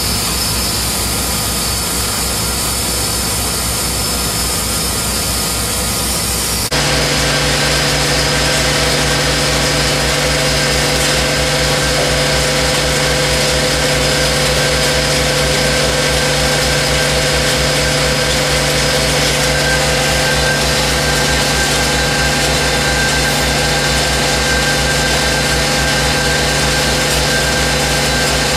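Ingersoll-Rand towable air compressor running steadily. About seven seconds in the sound cuts to another steady machine run from the grout pump plant, a hum with a higher whine over a fast even pulse.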